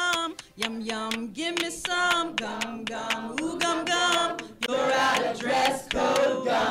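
A group of voices singing a cappella, holding and sliding between long notes, with steady hand claps keeping the beat.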